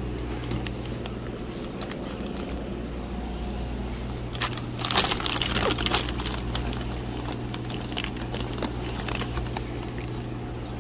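Plastic fish-shipping bags crinkling and crackling as they are handled, with a denser burst about four and a half to six seconds in, over a steady low hum.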